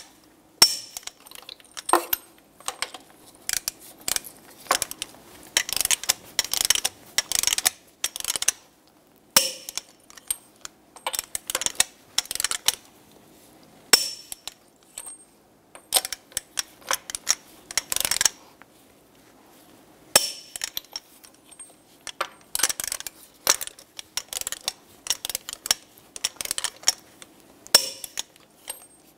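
Torque wrench ratcheting in repeated bursts of sharp metallic clicks as the wheel's lug nuts are tightened to 140 ft-lb in a cross pattern, with short pauses as it moves from nut to nut.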